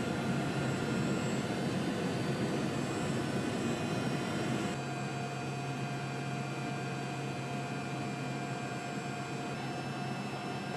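Aircraft engines droning steadily, heard inside the cabin of an air force search plane, with a few steady tones over the noise. The level steps down slightly about five seconds in.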